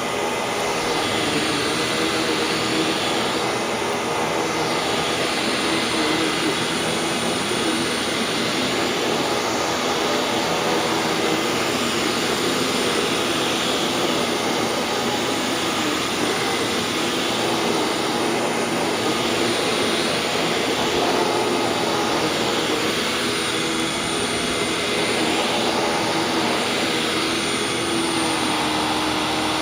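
Hoover WindTunnel WidePath upright bagged vacuum cleaner running continuously on a sandy carpet, a steady motor drone with a thin high whine, its sound swelling and easing every few seconds as it is pushed back and forth.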